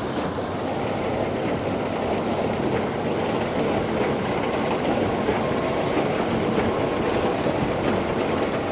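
CASE Puma tractor and Massey Ferguson baler working, picking up and compacting straw: a steady mix of engine and baler machinery running.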